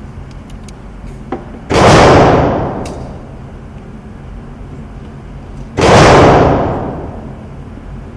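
Two pistol shots from a Springfield XD pistol, about four seconds apart, each sharp crack ringing on for about a second in the range.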